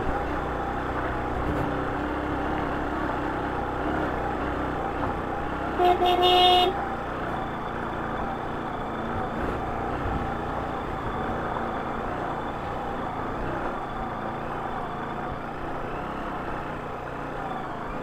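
Motorcycle engine running steadily while riding over a rough gravel road, mixed with wind and road noise. About six seconds in, a horn beeps once, for under a second.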